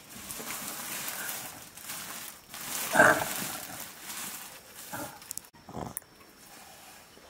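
Short animal calls: one loud call about three seconds in, then two shorter, fainter ones around five and six seconds in, over a faint steady hiss.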